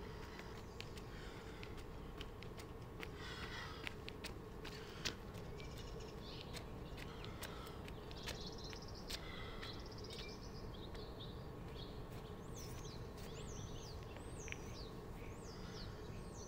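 Small birds chirping against a quiet outdoor background, with short high calls that glide quickly up and down in pitch, more of them in the second half. A faint steady hum and a few scattered light clicks sit underneath.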